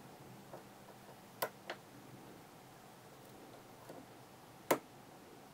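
Small sharp metallic clicks of a hook pick and tension wrench working the pins of a Sargent lock cylinder during single-pin picking: a close pair about a second and a half in and a louder single click near the end, with a few fainter ticks between.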